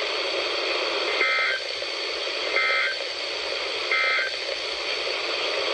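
NOAA Weather Radio broadcast sending three short bursts of warbling two-tone digital data, about 1.4 s apart, over steady radio hiss. This is the SAME end-of-message code that closes the Required Weekly Test alert.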